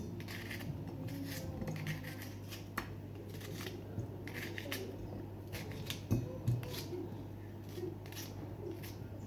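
Quiet kitchen food-prep sounds: scattered crisp scrapes and light taps of vegetables being handled and cut, over a steady low hum.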